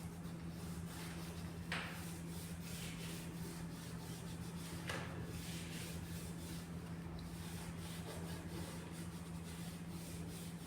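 Cloth rubbing and wiping over the metal test piece, a run of soft scratchy strokes with two sharper ones about 2 and 5 seconds in, over a steady low hum. This is solvent pre-cleaning of the surface before liquid penetrant inspection.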